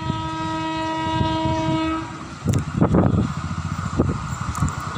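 WAP-4 electric locomotive's horn sounding one long steady blast that stops about two seconds in, followed by the rumble of the approaching train.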